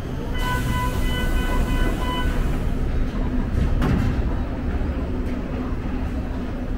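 Subway train running with a steady low rumble. A steady pitched tone with several overtones sounds for about two seconds starting just after the beginning, and there is a sharp knock about four seconds in.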